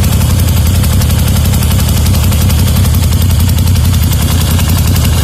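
Moto Guzzi V7 II Racer's air-cooled transverse V-twin idling steadily, with a regular ticking over the engine note that the owner hates and has not yet traced.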